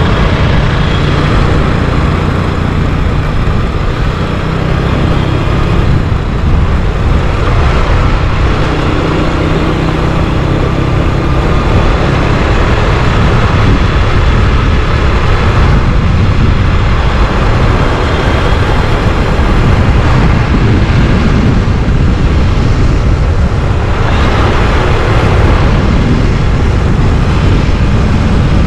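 Motorcycle engine running at a steady cruise while riding, with heavy wind rush over the microphone.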